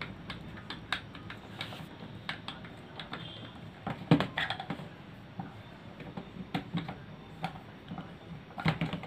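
Irregular small clicks and ticks of a Phillips screwdriver turning screws into the plastic handle of a mosquito racket, with a louder cluster of clicks about four seconds in.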